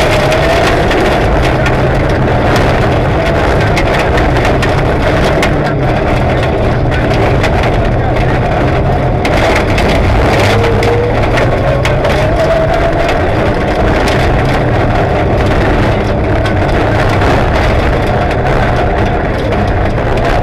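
Rally car engine at racing speed, heard inside the cabin, its pitch rising and falling again and again as it revs through the gears, with a constant clatter of gravel striking the underbody and wheel arches.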